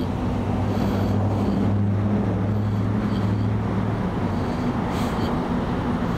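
Motor vehicle engine idling: a steady low hum.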